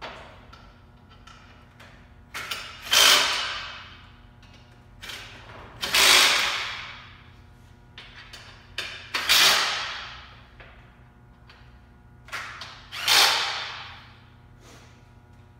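Cordless drill-driver run in four short bursts about three seconds apart, each a brief blip followed by a louder spin that dies away within about a second.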